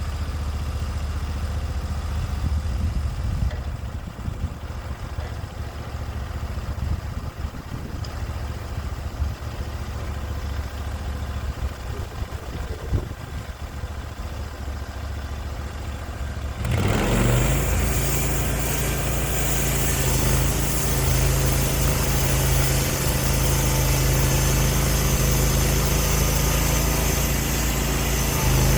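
Sawmill's gasoline engine idling with a low steady note, then throttled up suddenly about two-thirds of the way through and running steadily at higher speed.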